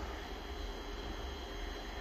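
Steady low hum with a faint hiss, no distinct events: background room noise.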